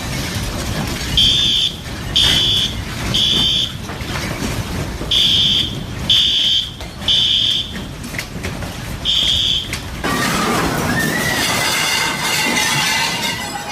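Fire or smoke alarm sounding the three-beep evacuation pattern: three loud, high beeps about a second apart, a pause, then the pattern again. The beeping is over a background of clatter and noise. About ten seconds in, the beeping stops and a different steady noise takes over.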